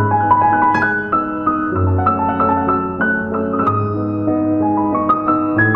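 Background piano music: a steady, unbroken run of single notes.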